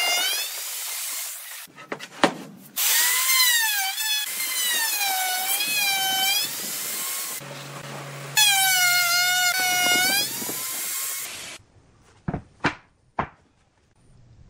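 Makita router running at high speed and cutting into a wooden board in several passes with short breaks. Its whine dips in pitch and recovers as the bit bites. Near the end come three sharp knocks.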